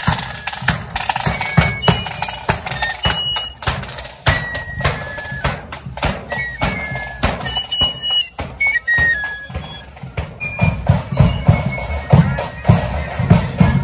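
Marching flute band playing a march. Side drums and a bass drum beat steadily under a high flute tune. Near the end the flutes fade and the drumming grows heavier.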